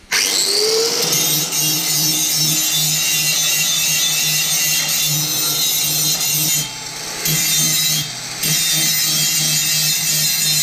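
Angle grinder with a grinding disc switched on and spinning up with a rising whine, then grinding the steel blade of a spade to shape and sharpen its tip. The grinding briefly drops in level twice, around seven and eight seconds in.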